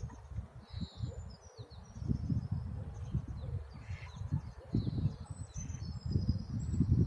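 Strong wind buffeting the microphone in gusts with a low rumble, growing stronger about two seconds in, while small birds chirp and whistle with short high notes.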